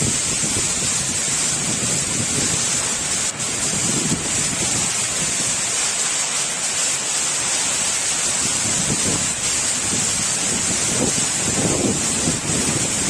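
Heavy rain pouring down in strong wind that thrashes coconut palms, a steady loud hiss. Gusts rumble on the microphone now and then, most strongly about four seconds in and again near the end.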